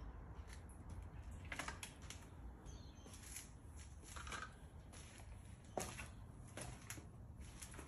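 Quiet background with a low hum and a scattering of faint short clicks and rustles, the sharpest about six seconds in.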